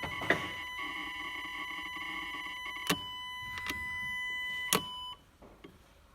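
Electric in-tank fuel pump of a Citroën C3 1.1 HFX running with a steady high whine, with a few sharp clicks, then cutting off suddenly about five seconds in.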